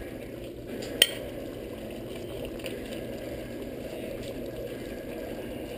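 Metal slotted spoon scooping saucy stew from a pot onto a plate, with one sharp clink about a second in, over a steady low background noise.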